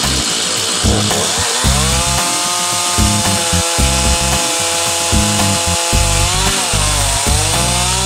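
Stihl MS391 two-stroke chainsaw at full throttle on a chainsaw mill, ripping lengthwise through an aspen log. Its pitch sags under load about a second and a half in and again near the end, then recovers.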